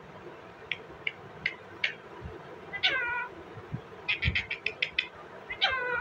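Indian ringneck parakeet calling: four short chirps, then a longer call that falls in pitch, a quick run of about seven sharp notes, and another falling call near the end.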